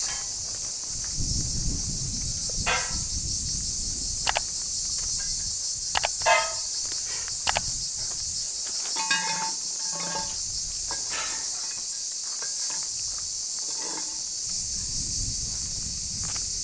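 A steady, high-pitched chorus of cicadas fills the summer air without a break. A few short, sharp knocks and clatters sound over it, the loudest about six seconds in.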